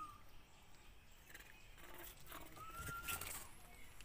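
Faint animal calls: a short whistle-like call that rises and then holds, right at the start and again about three seconds in. A few soft clicks and rustles come around the second call.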